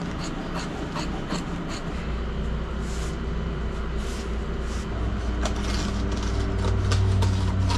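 Fiberglass cloth and balsa core being handled and cut with a utility knife: a string of short scrapes, rustles and clicks over a steady low hum, which deepens about five seconds in.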